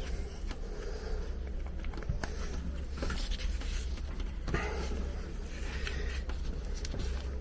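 Small metal parts being handled: scraping with a few sharp clicks as the last retaining clip is fitted to a prop shaft cross bearing (universal joint). A steady low hum sits underneath.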